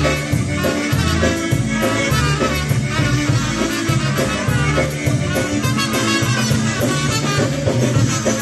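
Live polka band playing a tune, with a steady bass-and-rhythm pattern under the melody.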